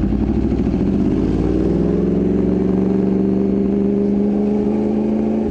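Sport motorcycle engine accelerating, its pitch climbing for about two seconds, then holding steady at high revs.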